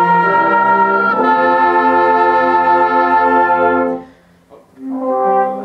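A school concert band of woodwinds and brass playing together, holding long sustained chords. The chord changes about a second in, and the band releases together about four seconds in. A short held tone sounds near the end.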